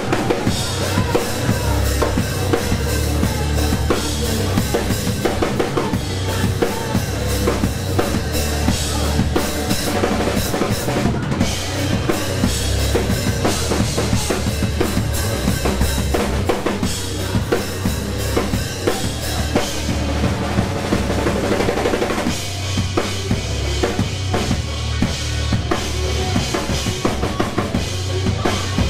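Live rock band playing loud, the drum kit's bass drum and snare hits to the fore over the rest of the band.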